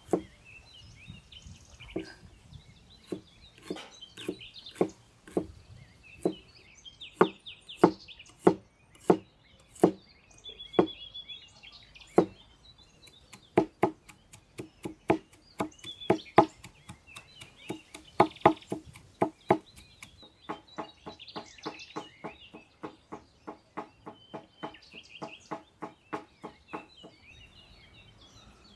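Steel cleaver chopping shallots on a wooden chopping block: separate knocks at first, then fast, even runs of mincing strokes, three to four a second, in the second half. Birds chirp in the background.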